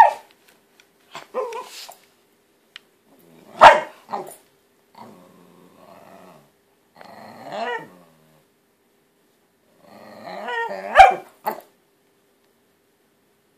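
Miniature pinscher growling and barking in short fits: low grumbling growls, with two loud sharp barks about four seconds in and again near the end. He is upset at a water bottle that still has water in it.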